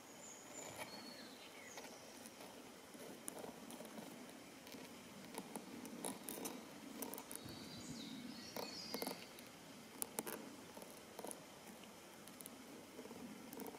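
Faint outdoor ambience: a low steady background with scattered small clicks and a few brief high chirps, twice in little clusters, near the start and about two-thirds of the way through.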